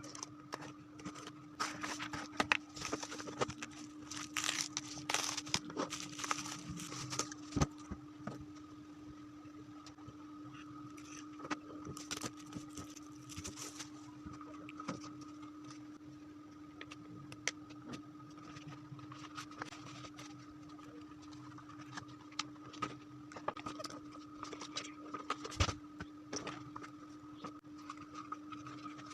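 Packaging of a CD album being handled and opened: rustling and crinkling, thickest in the first several seconds, then scattered clicks and taps. A steady two-tone hum runs underneath.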